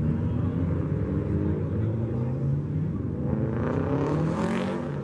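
A car engine running, its pitch rising about halfway through as it speeds up, with a rush of exhaust and road noise near the end as it pulls past.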